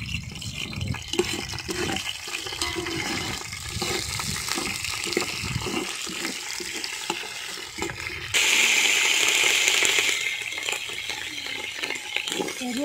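Fennel seeds and curry leaves sizzling in hot sesame oil in an aluminium pot, stirred with a steel ladle, with small scrapes and clicks from the ladle. The sizzling jumps suddenly louder about eight seconds in for a couple of seconds, then settles back.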